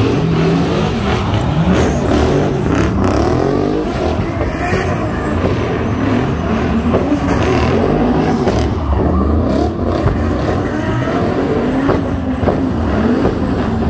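Car engines running and revving, their pitch rising and falling again and again.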